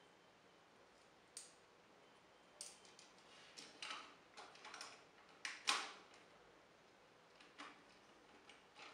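Faint, scattered clicks and taps of hard plastic model-kit parts (SMP GaoKing's Bison and Eagle Zords) being handled and fitted together, about a dozen light clicks with the loudest just before six seconds in.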